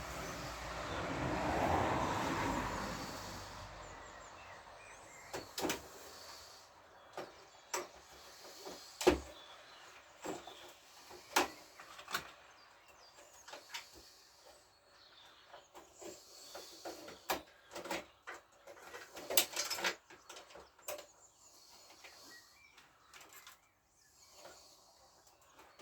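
Scattered clicks and knocks of hands and tools working on a scooter while its wiring and parts are disconnected, the sharpest knock about nine seconds in. At the start, a broad rushing sound swells and fades over a few seconds.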